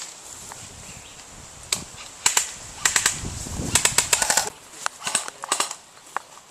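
Airsoft guns firing: sharp snapping shots, a few single ones and then a quick run of shots about four seconds in, with more single shots after it.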